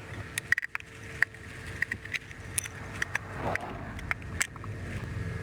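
Sharp clicks and taps of screws and metal parts being handled and worked loose while a TV/VCR combo is taken apart, over a faint steady hum.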